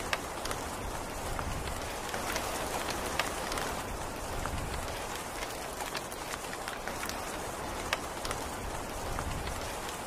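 Steady rain falling: an even hiss of rain with many separate drops striking sharply close by.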